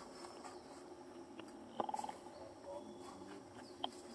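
Faint outdoor ambience with a few short animal chirps and squeaks: a brief rapidly pulsed call about two seconds in and a short thin chirp near the end, with light clicks in between.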